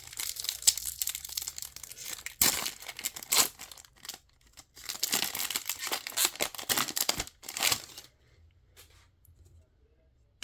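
A trading-card pack wrapper torn open and crinkled, in two spells of crackly tearing that stop about eight seconds in.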